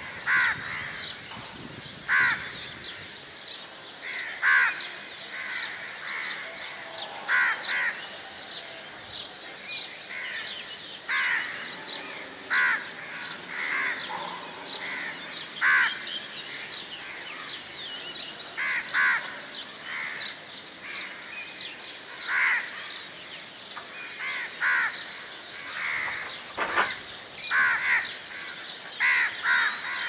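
Crows cawing over and over, short calls every second or two, often in pairs, with smaller birds chirping faintly behind them.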